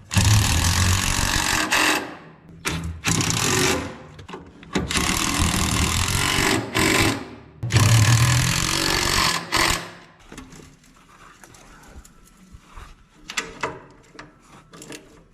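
Impact wrench running bolts in four bursts of rapid hammering, the longest about two seconds, followed by a few lighter clanks of tools and metal.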